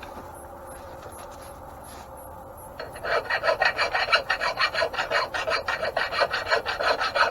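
A hand file rasping on metal in quick back-and-forth strokes, several a second, starting about three seconds in: filing down a tight-fitting bearing seat so that a bronze bushing will go in.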